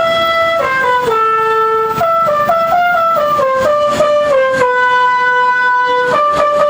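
Telolet bus horn: a multi-trumpet musical air horn playing a tune, sounding two notes at once. Short stepped notes are followed by a long held pair of notes past the middle, then a new phrase begins near the end.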